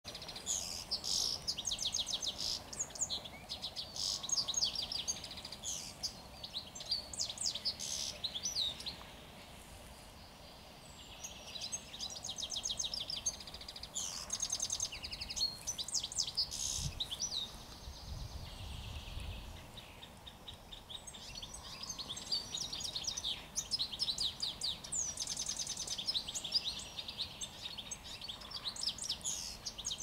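Songbirds singing in spring woodland: phrases of rapid, high-pitched twittering and trills, with short pauses between them. A brief low rumble comes about halfway through.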